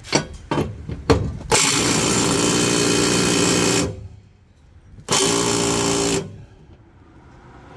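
Cordless power driver with a socket extension working the nut on a mower-deck spindle pulley: a few short clicks, then two runs of the tool, about two seconds long and then about one second, undoing the nut.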